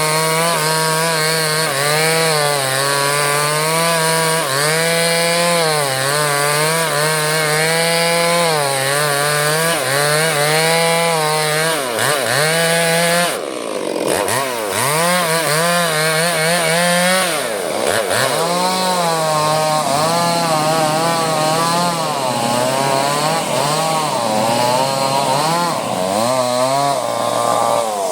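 Chainsaw cutting through a durian log, the engine's pitch wavering up and down as the chain bites under load. The revs drop briefly about halfway through and again a few seconds later, and settle lower near the end.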